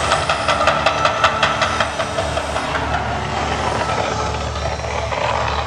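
Mirage Volcano attraction erupting: a loud, steady rumble as flames burst from the peak, with a rapid run of sharp cracks in the first second and a half.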